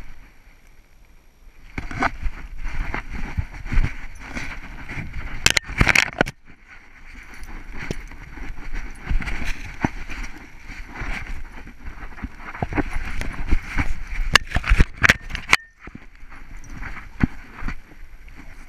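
Handling noise from a GoPro worn on a Plott hound's collar during rough play with another dog: continuous rubbing and rumbling with frequent sharp knocks. It cuts out briefly about six seconds in and again near sixteen seconds.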